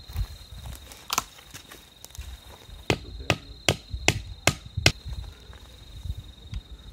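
A nail being hammered into a pine trunk: one sharp knock about a second in, then six quick, evenly spaced strikes at about two and a half a second. A steady high cricket trill runs underneath.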